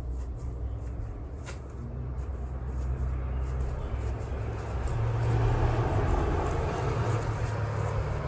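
Low, steady rumble of passing road traffic, swelling to its loudest about five seconds in as a vehicle goes by.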